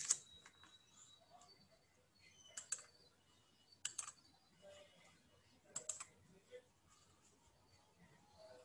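Sharp computer clicks: four quick clusters of two or three clicks each, spread over about six seconds, the first the loudest, over a quiet room.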